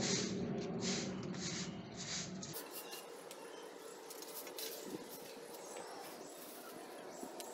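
Short grass-bristle hand broom sweeping dry straw litter across a cement floor: rhythmic swishes about two a second. About two and a half seconds in it turns to quieter sweeping and scraping of the straw into a plastic dustpan, with small ticks.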